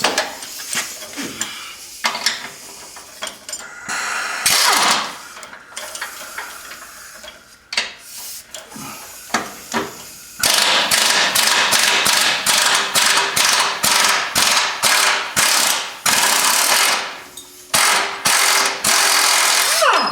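Impact wrench working loose a 21 mm axle bolt: a few short bursts in the first half, then a long stretch of steady hammering from about halfway, a brief pause, and more hammering near the end.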